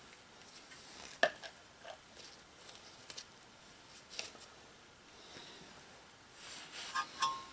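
Faint, scattered clicks and taps of hand work on a brake caliper bracket as lubricant is applied, with a sharper tap about a second in and a short metallic clink near the end.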